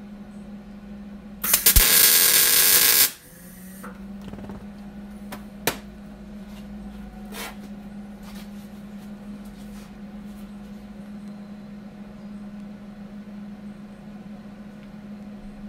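MIG welder laying a short weld bead on the steel emergency-brake arm, building up its worn-out hole edge: one loud, even hiss lasting about a second and a half, a little over a second in. Afterward come a couple of sharp clicks over a steady hum.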